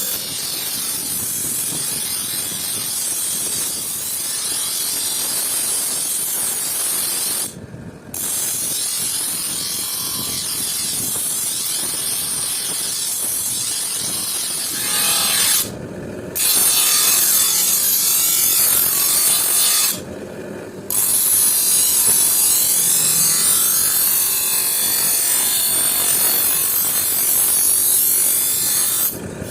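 Continuous hand-tool scraping and rubbing on the file-made knife, stopping briefly three times.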